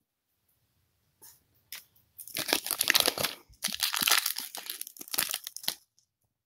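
Foil Pokémon booster pack wrapper being torn open and crinkled by hand. After a quiet first second and a couple of faint rustles, loud crinkling and tearing runs for about three seconds and stops shortly before the end.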